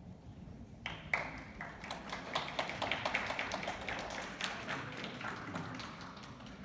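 Scattered hand clapping from a crowd of spectators in a large hall: it breaks out about a second in, builds, and thins out near the end.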